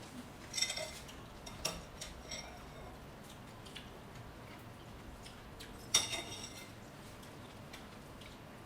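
Cutlery clinking against dishes a few times: a ringing clink near the start, a couple of lighter knocks, and the loudest ringing clink about six seconds in.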